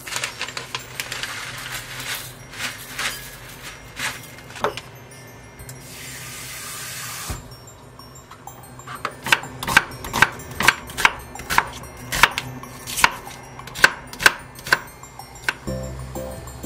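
Kitchen knife chopping an onion on a cutting board: a regular run of sharp cuts, about three a second, taking up the second half. Before it there are scattered kitchen handling clicks and a short hiss, and music comes in near the end.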